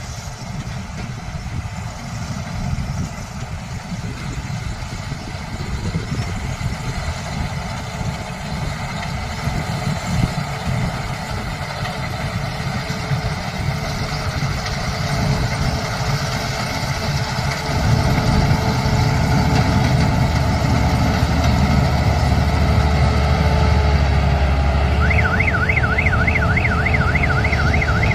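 Diesel engine of a Dasmesh 731 tracked combine harvester running steadily, getting louder about two-thirds of the way through. Near the end a rapidly warbling, siren-like electronic tone sounds over it.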